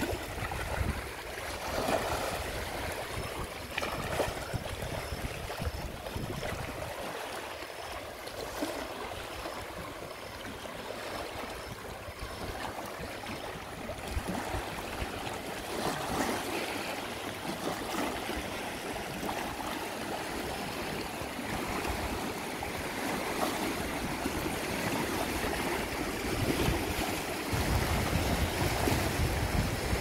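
Small sea waves lapping and washing against shoreline rocks, with wind buffeting the microphone, heaviest near the start and again near the end.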